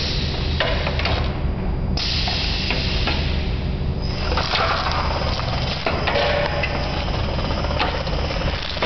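ALCOLOR PTA 300 Auto protective tape application machine running: a steady motor hum under a rushing mechanical noise of profile and film passing through the rollers, which cuts in and out several times.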